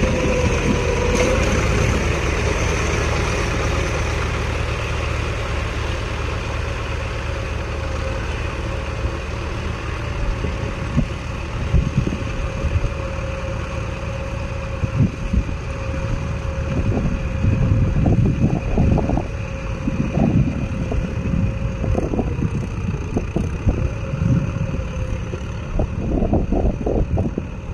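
John Deere 5310 diesel tractor engine running as the tractor works through deep mud, with a thin steady whine over the engine note; it fades over the first several seconds as the tractor moves off. Irregular low thumps come and go in the second half.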